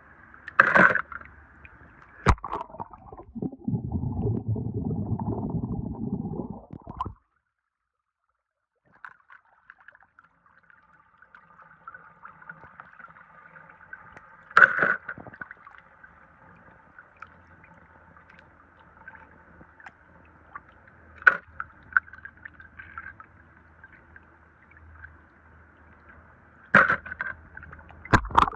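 Water trickling and sloshing as die-cast toy cars are washed by hand, with a few sharp clicks. A heavier rush of water comes a few seconds in, then stops suddenly into a couple of seconds of silence.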